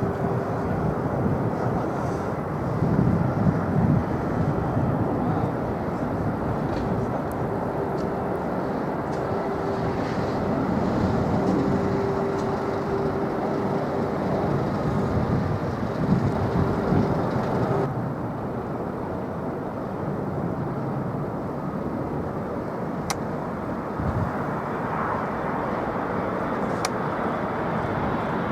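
Jet airliner engine noise: a steady rumble with a held hum that cuts off abruptly about eighteen seconds in, after which the rumble continues.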